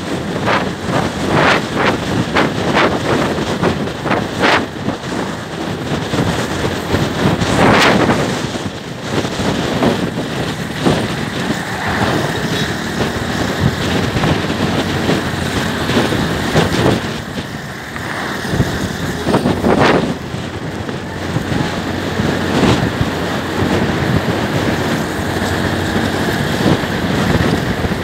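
Wind buffeting the microphone of a motor scooter ridden at road speed, with irregular gusts, over the Suzuki scooter's engine and tyre noise.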